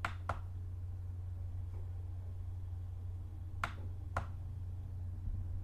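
Computer mouse button clicked twice in quick pairs: one pair at the start and another about three and a half seconds in, over a steady low hum.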